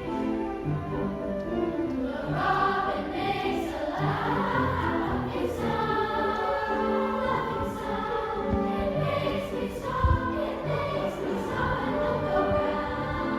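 A mixed-voice chorus singing a choral piece, accompanied by piano and flute. A brief low thump comes about ten seconds in.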